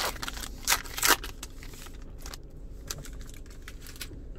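Foil wrapper of a basketball card pack being torn open and crinkled: a few sharp crackles in the first second or so, then quieter rustling and light clicks as the cards are handled.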